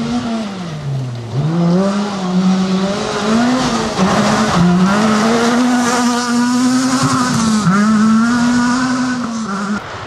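Ford Fiesta rally car's engine revving hard. Its pitch drops sharply about a second in as the driver lifts, then climbs again and holds high with short dips at each gear change. The sound cuts off just before the end.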